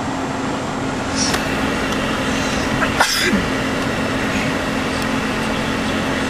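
Car driving slowly, heard from inside the cabin: steady road and engine noise with a constant low hum. Two brief unidentified noises stand out, about one and three seconds in.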